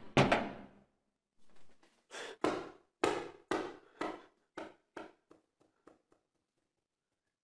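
A series of sharp knocks or thuds. One loud hit with a ringing tail comes at the start, then about ten more follow roughly every half second, growing fainter and closer together until they stop about six seconds in.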